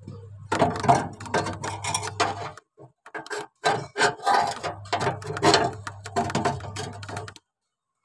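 Pliers working a fridge evaporator's copper tube: dense clicking and crackling in two runs, with a short pause a little before the middle, over a low steady hum.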